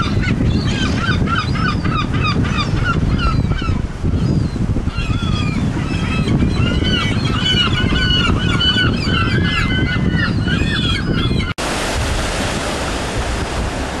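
A flock of herring gulls calling over and over, a dense run of short cries that bend up and down in pitch. About eleven and a half seconds in it cuts off suddenly to a steady rush of wind and waves with no calls.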